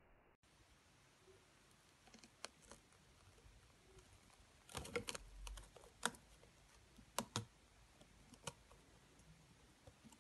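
Faint scattered clicks and taps of a clear plastic enclosure being handled close to the microphone, with a quick cluster of them about halfway through.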